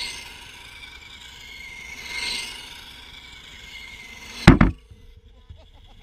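Remote-control car's motor whining high as the car drives around, swelling twice as it comes close. About four and a half seconds in there is a loud, short knock, after which the whine stops.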